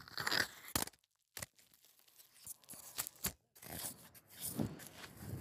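Close scraping, crunching and knocking on a camera as a wild Asian elephant handles and rubs against it, in irregular bursts with short pauses about a second in and again after three seconds.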